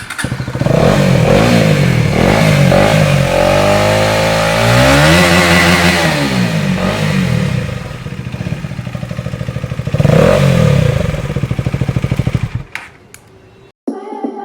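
Husqvarna Svartpilen 250's single-cylinder engine revving through an aftermarket Akrapovic-copy exhaust with no dB killer fitted. It gives several quick blips and one longer rev that rises and falls, and the engine sound stops about thirteen seconds in.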